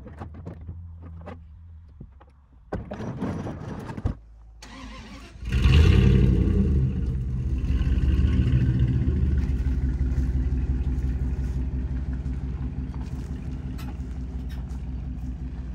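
A vehicle engine running loudly while it tows a car-hauler trailer loaded with an old car. It comes in suddenly about five and a half seconds in and eases off slightly toward the end. Before that there is only a faint low hum and some handling noise.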